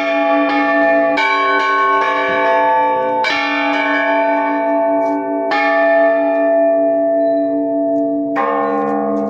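Large church bells struck close by in the belfry, each stroke ringing on in a long, many-toned hum that overlaps the next. The strokes come about every two to three seconds and get slower as the ringing winds down.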